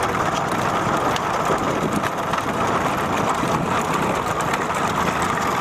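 Steady vehicle running noise: an engine with road and wind noise, even and unbroken.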